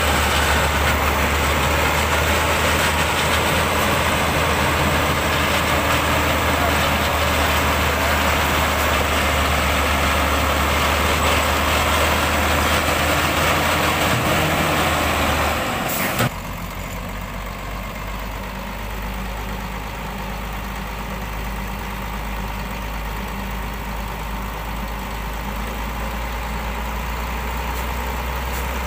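Heavy Hyundai logging truck's diesel engine running steadily with a loud mechanical din. About sixteen seconds in, a sharp click and an abrupt change lead to a quieter, lower engine note, like idling.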